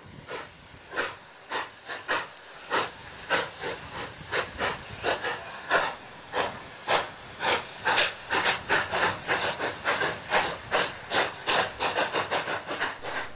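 Denver & Rio Grande Western narrow-gauge steam locomotive working, its exhaust chuffs quickening from about one a second to three or four a second as it gathers speed.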